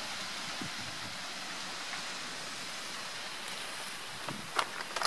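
A steady rushing noise, with a few sharp clicks near the end.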